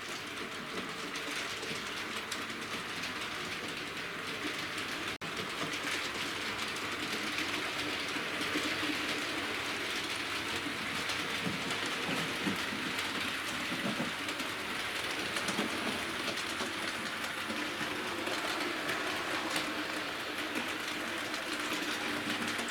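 Hornby OO gauge model locomotive running steadily along the track with its coaches: a continuous rushing hiss of wheels on the rails with a faint motor hum underneath. There is a momentary break about five seconds in.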